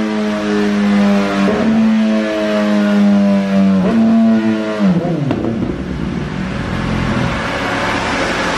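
BMW S1000R's inline-four engine with an Akrapovič exhaust at full throttle on a motorcycle dynamometer, its note held high with two short breaks about 1.5 and 4 seconds in. About five seconds in the throttle closes and the revs fall away, leaving a steady rushing noise.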